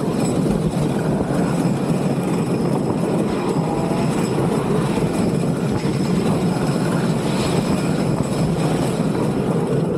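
Tonnerre 2 Zeus wooden roller coaster train running at speed over its wooden track: a steady, loud rumble of the wheels on the track, mixed with wind rushing over the microphone.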